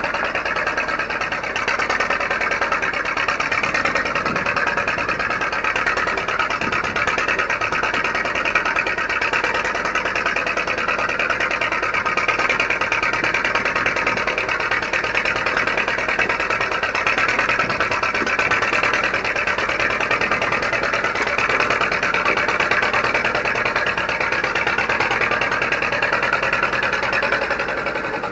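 Case 530CK backhoe's engine running steadily at work, a dense, even engine clatter with no pauses.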